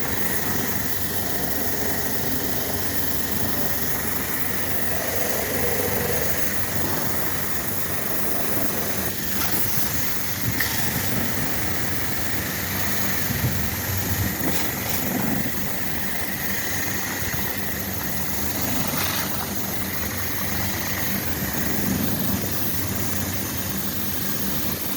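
Air-conditioning unit running: a steady mechanical hum with a high whine and hiss over it, and a few faint knocks.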